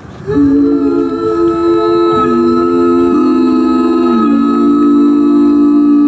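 Five-voice a cappella group singing into microphones, holding long sustained chords. The harmony moves to a new chord every second or so.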